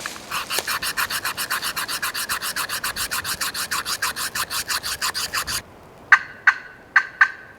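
A hand-worked friction turkey call run in a long, fast raspy series of about seven or eight strokes a second. It stops abruptly, then gives five short sharp clucking notes. A hunter is calling to draw a gobbler's answer.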